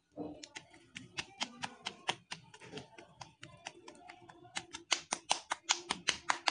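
Hands patting and slapping a ball of maize-flour dough into shape, a quick run of soft slaps that gets louder and more regular, about four a second, around five seconds in.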